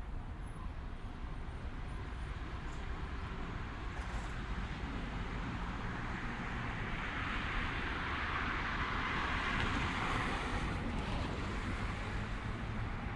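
A car passing on the road: its tyre and engine noise swells over several seconds, peaks about ten seconds in and fades away, over a steady low rumble of distant traffic.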